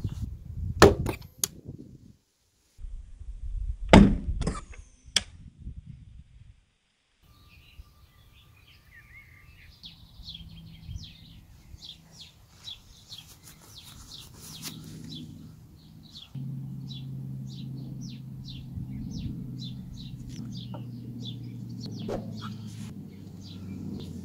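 A few sharp metallic clicks and knocks as the CO2 capsule cap of a T4E HDS 68 CO2 shotgun is handled, followed by outdoor ambience: a bird chirping in rapid repeated short notes, and a steady low hum in the second half.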